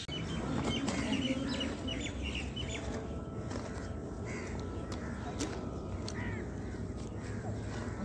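Birds calling: a scatter of short chirps and calls, with two longer arched calls about four and six seconds in, over a steady low outdoor background.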